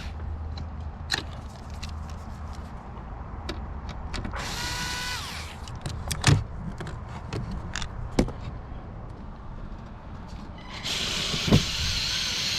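Cordless electric screwdriver backing out the Phillips screws of a truck door panel. There is a short whir about four and a half seconds in that winds down in pitch, scattered clicks of the tool and screws being handled, then a longer, louder whir starting near the end.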